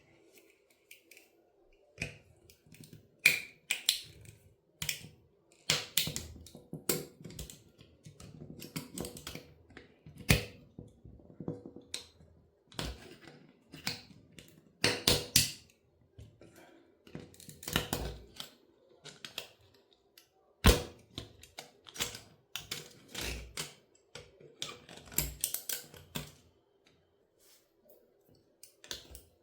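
Toy car being crushed and breaking apart: irregular sharp cracks, snaps and crunches, some much louder than others, over a faint steady hum.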